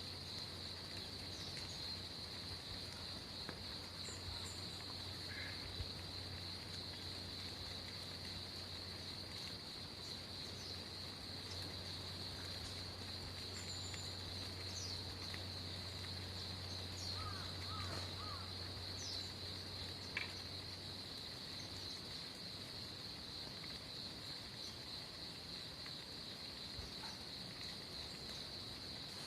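Insects trilling steadily in a continuous high-pitched chorus, with a few short faint bird chirps. A low steady hum runs underneath and stops about two-thirds of the way through.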